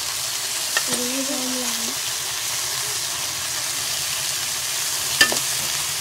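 Pork belly strips frying in a pot of hot oil on a gas ring: a steady sizzle, with a metal spoon clinking against the pot twice, about a second in and near the end.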